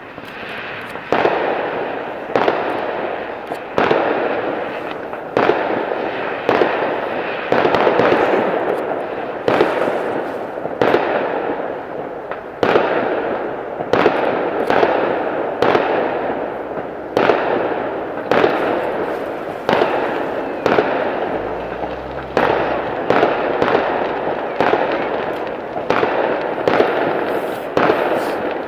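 Fireworks going off one after another, a sharp bang every second or so, each trailing off in a fading crackle.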